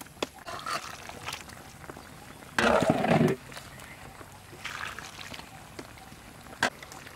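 A metal ladle pouring braising sauce into a steel bowl, with sharp clinks of metal on metal near the start and again near the end. A loud, short vocal call, under a second long, comes about two and a half seconds in and is the loudest sound.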